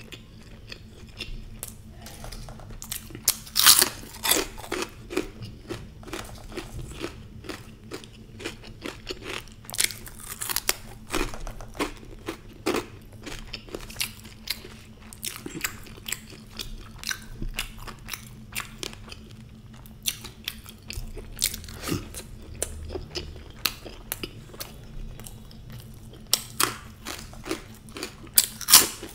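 Close-miked chewing and crunching of crisp fried Indian food, with wet mouth sounds and many small crackles. Louder crunchy bites come about four seconds in and again near the end.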